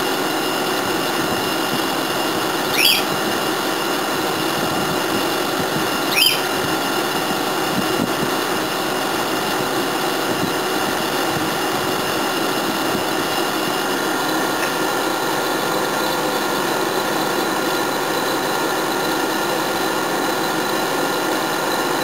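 Small air conditioner's compressor and condenser fan running steadily at maximum load, relying on the fan alone with no water in the condenser tray: a steady hum with several fixed tones. Twice, about three and six seconds in, a brief high chirp rises above it.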